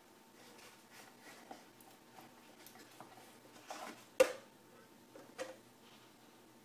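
Cardboard packaging and small plastic parts being handled, with faint rustling and light taps and one sharp knock about four seconds in.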